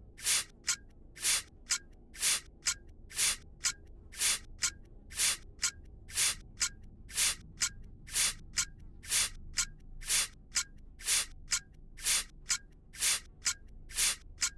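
Rhythmic hissing sound effect: a longer hiss followed by a short one, repeating steadily about once a second.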